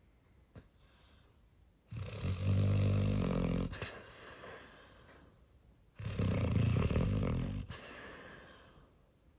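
Labrador retriever snoring in deep sleep: two long, low snores about four seconds apart, each trailing off into a softer breath.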